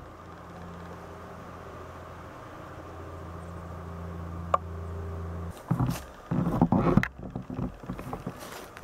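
A steady low motor hum that grows slowly louder and stops abruptly about five and a half seconds in, followed by a few seconds of irregular knocks and rustling.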